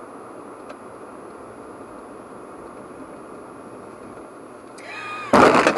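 Steady road and cabin noise of a car driving, picked up by a dashcam. Near the end a voice rises, followed by a loud sudden burst of noise as another car cuts close in front.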